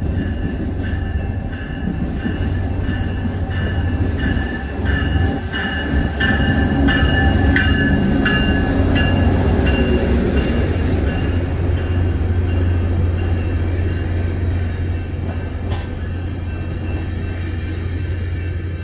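New Mexico Rail Runner Express commuter train running past the platform with a steady low rumble. Over the first ten seconds or so, the bell of the closed-off road crossing rings rapidly, about two strokes a second.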